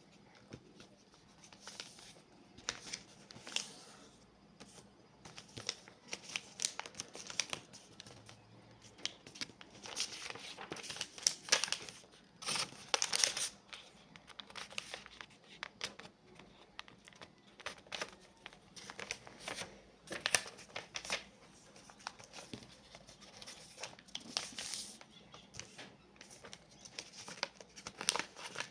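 A sheet of paper being folded and creased by hand into a paper airplane: irregular rustling and crinkling, with sharper crackles where the folds are pressed down.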